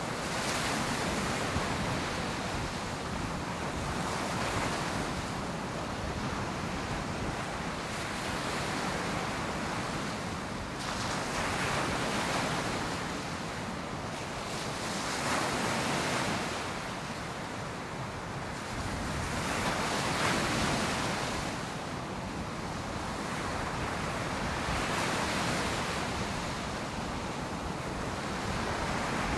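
Ocean surf breaking on a beach, the wash of the waves swelling and fading every few seconds, with some wind on the microphone.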